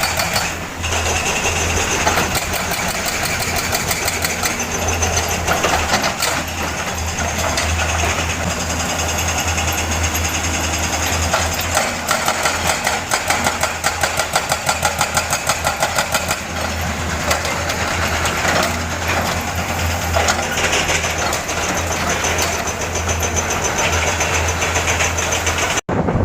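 Excavator's hydraulic breaker hammering rock, a fast train of blows over the excavator's running diesel engine; the blows come most plainly in the middle of the stretch.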